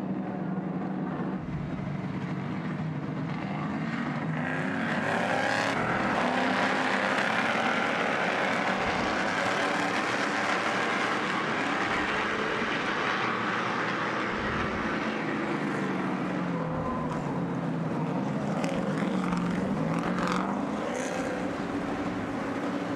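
Stadium Super Truck engines running on track, their pitch rising and falling as the drivers work the throttle through the corners.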